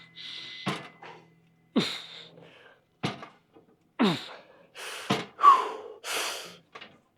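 A man grunting and exhaling hard about once a second, with sharp gasping breaths between, as he strains through the repetitions of a set.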